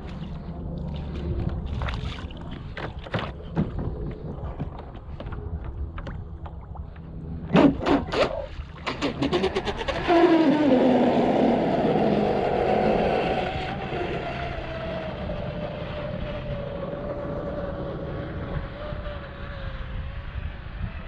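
Pro Boat Blackjack 42 RC catamaran running on 8S: a few sharp knocks, then about ten seconds in a loud high-pitched electric motor whine starts, fading and slowly dropping in pitch.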